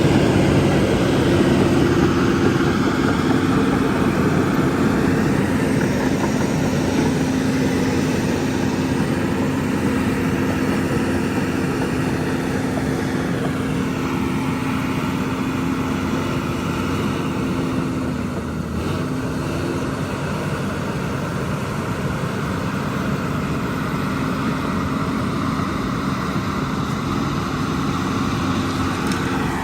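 Diesel engine of heavy earthmoving machinery running steadily at work, a continuous drone whose pitch shifts slightly about two-thirds of the way through.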